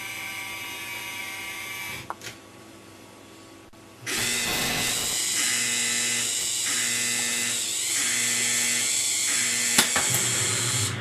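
Small electric motor and plastic gears of a USB foam-missile launcher whirring: a quieter run for about two seconds, then a louder steady whir from about four seconds in that rises and falls about once a second, with a sharp click shortly before it stops.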